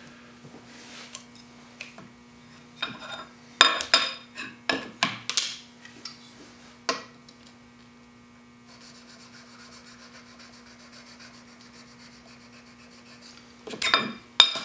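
Steel chisel rubbed by hand in short strokes on a DMT diamond sharpening plate, knocking off the burr raised on the fine plate. Near the end, metal clinks as the sharpening jig is lifted and set down, over a steady low hum.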